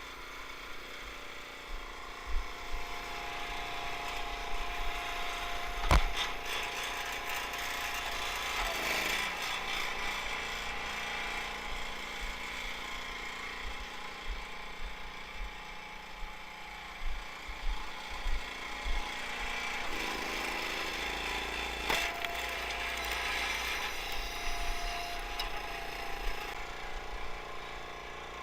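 A small engine-driven machine runs steadily while firewood is worked, its note shifting twice under changing load. Sharp single cracks come about 6 s and 22 s in.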